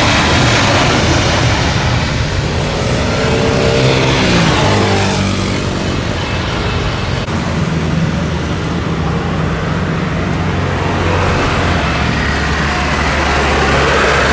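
Jet airliner's engines passing close by, a loud rush whose engine tones fall in pitch a few seconds in as it goes past, then a steady low engine hum.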